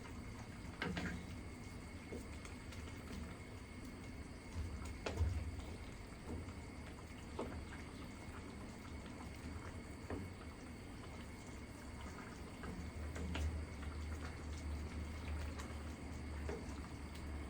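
Beef curry bubbling as it simmers in the pot, with a few scattered clinks of a spoon against the pan as it is stirred.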